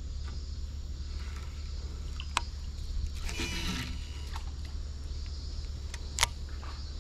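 A cast with a baitcasting rod and reel: a short whir of line paying off the spinning spool a little past three seconds in, and sharp clicks of the tackle, the loudest near six seconds. Under it runs a steady low hum and a faint high insect drone.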